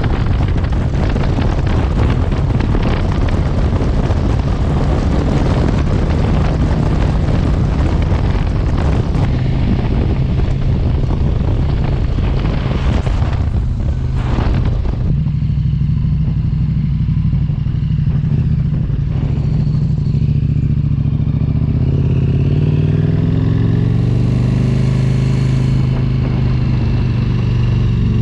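A motor vehicle's engine running, heavily overlaid with wind rush on the microphone for about the first fifteen seconds. After that the wind drops and the engine comes through clearly, its pitch rising and falling near the end.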